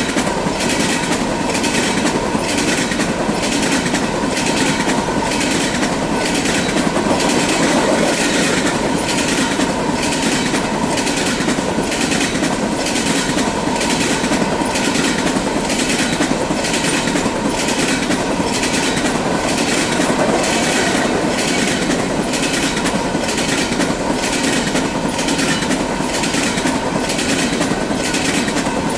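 Freight cars rolling past, their wheels clicking over the rail joints in a steady, even rhythm.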